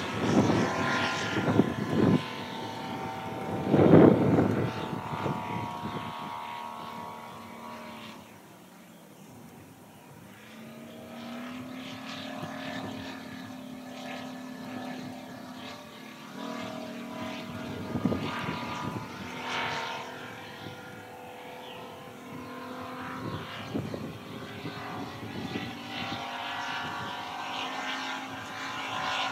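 Propeller-driven biplane engine droning overhead during aerobatics, its pitch and loudness rising and falling as it manoeuvres. Loudest about four seconds in, it fades away around eight to ten seconds in and then swells again.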